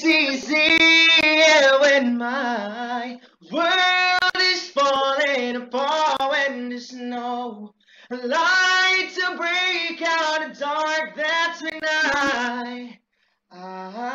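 A solo voice singing unaccompanied, in three long phrases with held, gliding notes, each followed by a short pause.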